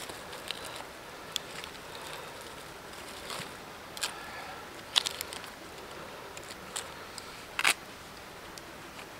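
A disposable lighter being struck again and again without catching: scattered sharp clicks, the two loudest about five seconds in and near the end, over a low steady outdoor hiss.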